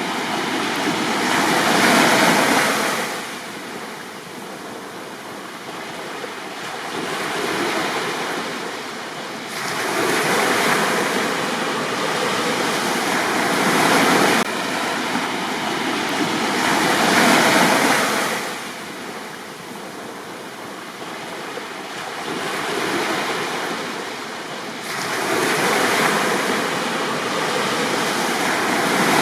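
Sea waves breaking and washing up on a beach, each surge swelling and fading again every few seconds, with quieter lulls between the bigger sets.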